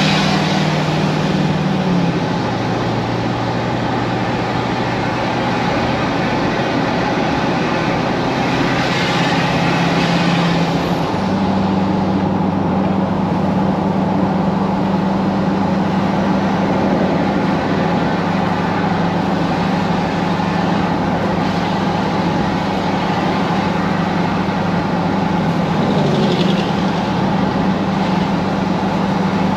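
Motor vehicle driving, with the engine's steady low drone over road noise. The drone drops in pitch about two seconds in and shifts again about eleven seconds in.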